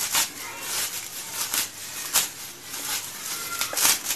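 Dry, brittle agar-agar (china grass) strands crackling and rustling as hands pull them apart, with irregular small snaps and clicks.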